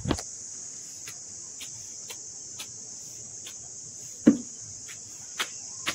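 Steady high-pitched insect trill, like crickets, running on without a break, over light snapping clicks about every half second as leafy green stems are stripped by hand. A louder knock comes about four seconds in.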